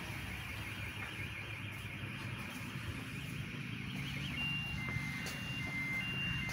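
Car alarm going off: a fast warbling tone for about four seconds, then switching to alternating high and low beeps.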